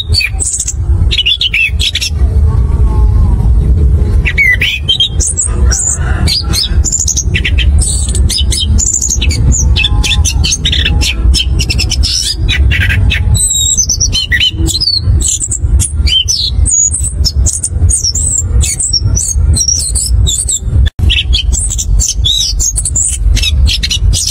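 Chestnut-capped thrush (anis kembang) singing a fast, continuous rolling song of varied chirps and whistles, over a steady low rumble, with a split-second dropout late on.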